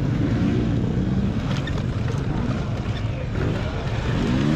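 Electric dirt bike riding off-road: the motor and drive whine rises and falls in pitch with the throttle, over heavy wind rush on the microphone, with scattered knocks and clicks from rough ground.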